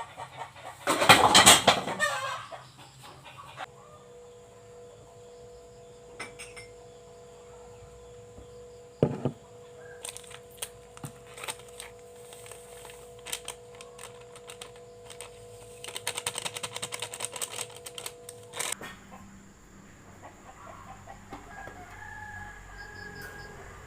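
A rooster crows loudly once about a second in. Later there are bursts of rapid clicking and clattering, with a steady hum that stops suddenly about two-thirds of the way through, and faint bird calls near the end.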